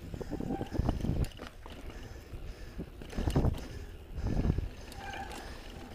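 On-One Codeine 27.5 mountain bike riding fast down a rocky dirt trail: tyres rolling and crunching over dirt and rock, with clicks and rattles from the bike and heavy thuds over bumps, about a second in and twice more a little later.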